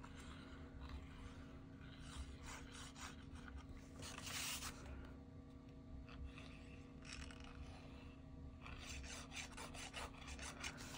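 Faint, intermittent rubbing and scraping of kraft cardstock as a fine-tip squeeze bottle of liquid glue is drawn along a folded paper tab and the paper strips are handled. A low steady hum sits underneath.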